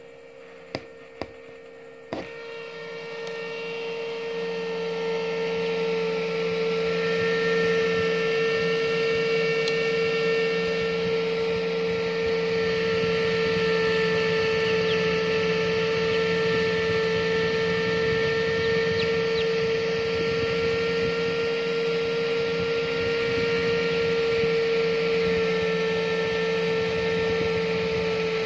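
Steady electrical hum from a homemade egg incubator, one even drone with fainter overtones, growing louder over the first few seconds and then holding level. A few sharp clicks come in the first two seconds as the incubator door knob is handled.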